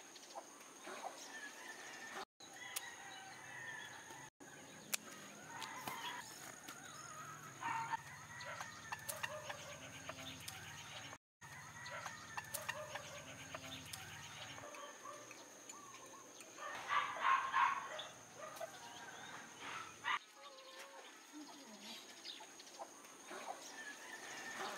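Backyard chickens clucking, with a rooster crowing and other birds calling; the calls are loudest about seventeen seconds in. The sound cuts out briefly three times.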